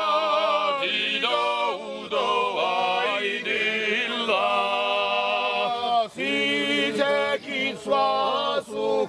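Men's choir singing a cappella in several voices, a mountain folk choral song: held chords shifting every second or so, with short breaks between phrases.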